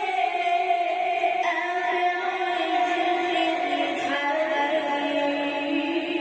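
A man reciting the Quran in a melodic style, holding long drawn-out notes with the melody sliding lower in the second half.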